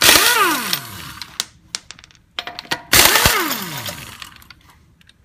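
Impact wrench spinning lug nuts off the wheel studs in two bursts, about three seconds apart. Each burst ends in a falling whine as the tool spins down, with light clicks between them.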